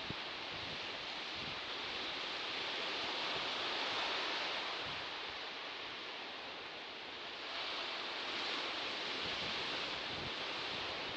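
Sea surf washing on a shore, a steady hiss that swells, eases off and then rises again as another wave comes in.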